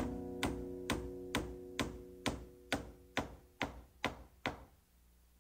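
Steady hand-hammer blows, about two a second, driving 3-inch spikes into a wooden plank door; the strikes grow fainter and stop about four and a half seconds in. Acoustic guitar music fades out under the first blows.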